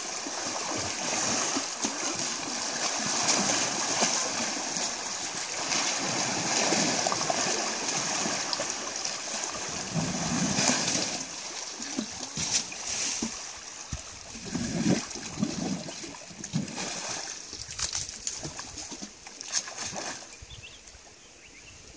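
Asian elephant wallowing and rolling in a muddy pool, churning thick mud water with continuous sloshing and splashing. About halfway through, the steady churning gives way to separate, irregular splashes as it shifts and moves its trunk and legs in the mud.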